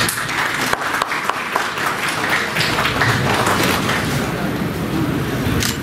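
Audience applauding, a steady patter of many hands clapping.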